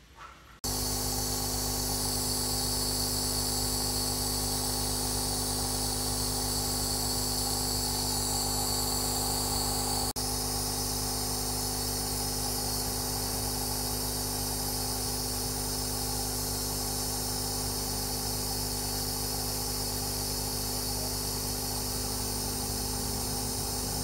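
Compressor nebulizer running during an asthma treatment: a steady motor hum with a high hiss of medicine being misted into the face mask. It starts abruptly about half a second in and drops out for an instant about ten seconds in.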